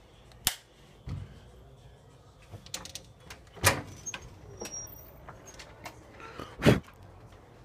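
A door being opened and handled: a sharp click about half a second in, knocks and small rattles, then a heavier thump near the end.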